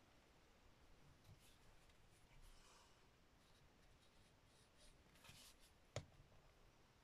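Near silence with faint rustling of small paper pieces being handled and glued, then a single sharp tap about six seconds in as a plastic glue bottle is set down on a cutting mat.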